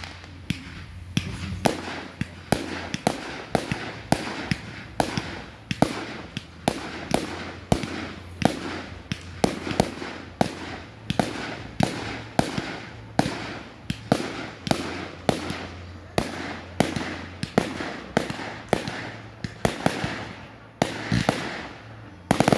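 Fireworks display: an even run of sharp bangs, about two a second, shell after shell bursting in the sky.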